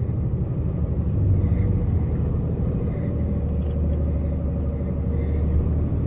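Scania truck's engine and road rumble heard inside the cab, running steadily while climbing a mountain road, a low drone with a faint higher whine joining about halfway through.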